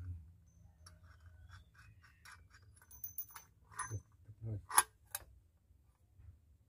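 Light clicks and clinks of metal parts being handled: a bolt with washers and a rubber mount on a metal plate, turned in the hand and fitted into a car floor. A cluster of sharper clinks comes a little past the middle, the loudest among them.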